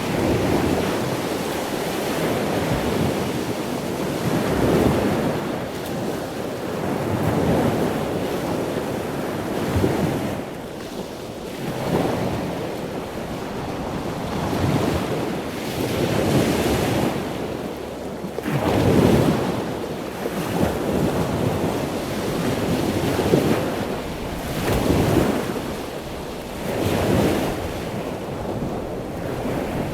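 Ocean surf: waves breaking and washing in as a steady rush that swells and ebbs every two or three seconds, with wind.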